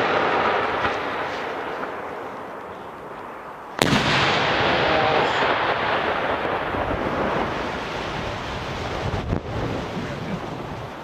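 Aerial firework shell bursting with one sharp boom about four seconds in. The noise dies away slowly over several seconds, and a smaller sharp report comes near the end.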